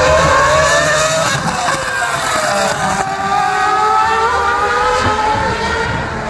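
Ferrari race cars running on the track, their engine note rising and falling several times as they accelerate and ease off.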